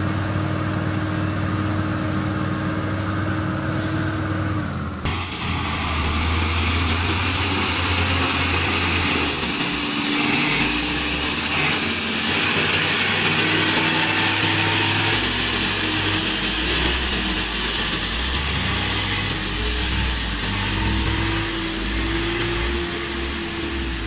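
Heavy logging truck's diesel engine running steadily, with an abrupt change to a different engine sound about five seconds in.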